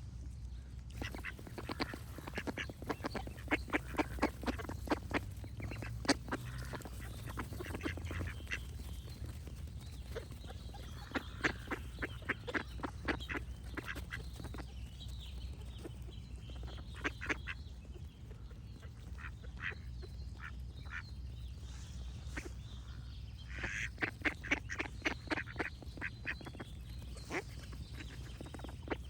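Ducks quacking in rapid runs of quacks, several bouts with pauses between them, over a steady low background rumble.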